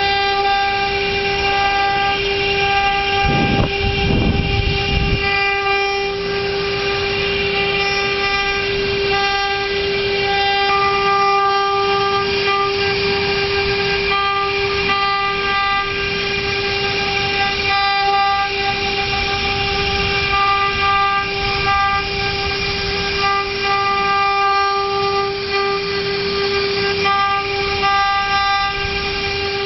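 CNC router spindle running and carving MDF: a steady, high whine with many overtones over changing cutting noise, with a brief low rumble about four seconds in.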